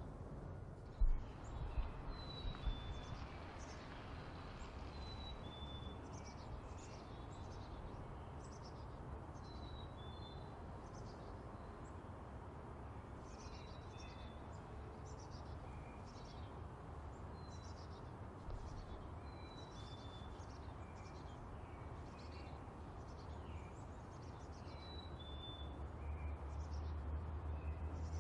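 Black-capped chickadee whistling a two-note song, the second note a little lower, repeated every few seconds, over many short high chirps. A low thump about a second in.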